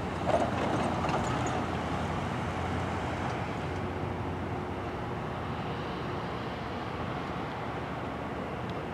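Diesel locomotive of a Loram rail grinder train running steadily, a continuous low rumble with a hum, and a brief louder noise just after the start.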